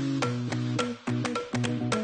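Background music: a track with sustained synth or bass notes and a steady percussive beat.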